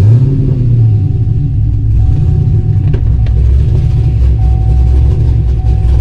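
Fifth-generation Chevrolet Camaro's 6.2-litre V8 with long-tube headers, just restarted hot. A brief start-up flare in the first second settles into a steady idle.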